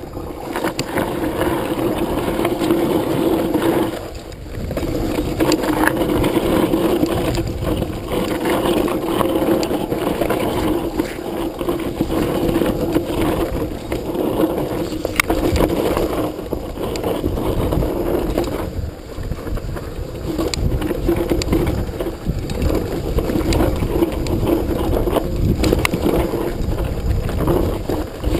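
Mountain bike descending a rocky dirt trail, heard from a chest-mounted camera: tyres crunching over dirt and loose stones, with many short knocks and rattles from the bike as it hits bumps. The noise eases briefly twice.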